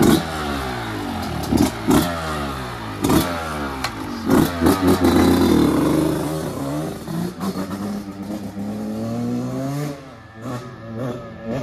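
Yamaha 125 dirt bike engine revving as the bike pulls away, its pitch climbing and dropping back several times as it shifts up through the gears, then fading as it rides off near the end.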